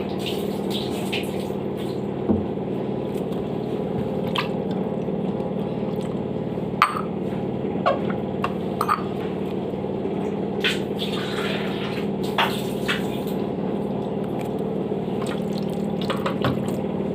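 Water running and dripping steadily while the washing machine's drain filter is being cleaned, with scattered small clicks and knocks of plastic parts being handled.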